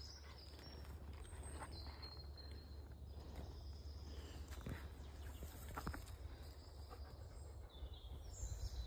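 Faint woodland birdsong, a few high chirps, over a low steady rumble, with a few brief rustles and knocks.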